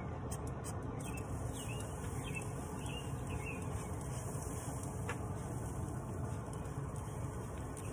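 Steady low hum of a Camp Chef pellet grill's fan running while the grill cooks, with faint bird chirps and a single click about five seconds in.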